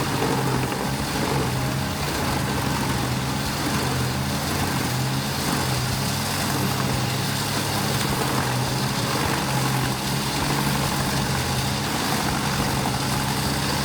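Wood chipper engine running steadily at a constant speed, a low hum under a broad even hiss.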